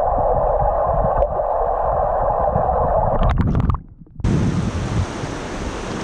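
Muffled rushing of stream water heard through a submerged action camera, dull and low. About four seconds in it cuts to open-air river water running over riffles, brighter and fuller, with wind on the microphone.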